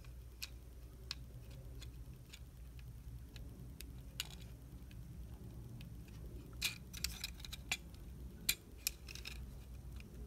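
Small plastic clicks and ticks from a Transformers Deluxe Barricade action figure's parts being moved and fitted by hand: scattered single clicks, then a quicker run of sharper clicks about two-thirds of the way through, over a faint low hum.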